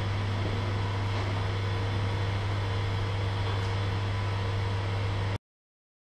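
Small electric blowers running with a steady whir and low hum, inflating plastic-bag birds; the sound cuts off abruptly near the end.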